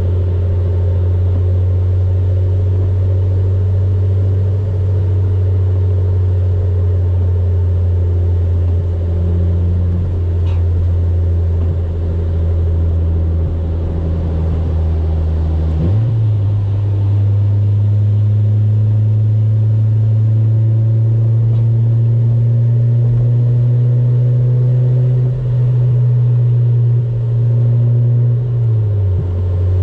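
Honda Civic EK coupe's engine droning steadily on the move. About halfway through its pitch jumps up suddenly, then climbs slowly and falls back near the end.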